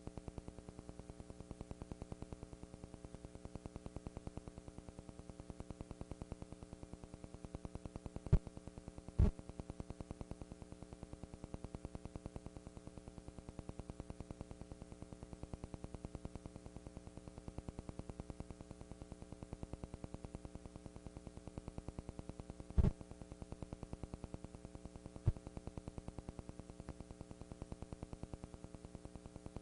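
Steady electrical hum and buzz from the recording, with a few sharp clicks scattered through it; no music is heard.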